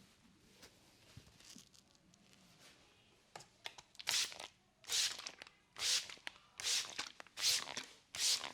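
Hands rubbing briskly through hair during a head massage. After a quiet stretch with faint ticks, rhythmic swishing friction strokes start about three seconds in, a little under one a second, and grow louder.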